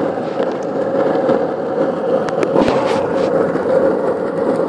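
Skateboard wheels rolling over asphalt, a steady gritty rumble, with a few light clicks partway through.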